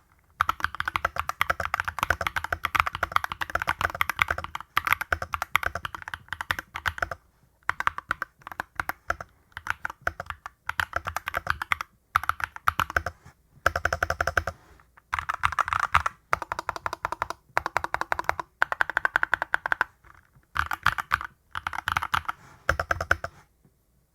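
Typing on an XVX H61 aluminum-cased 60% hot-swappable mechanical keyboard with PBT keycaps: fast runs of keystrokes in bursts of a second or several, with short pauses between them, as a sound test of the switches and keycaps.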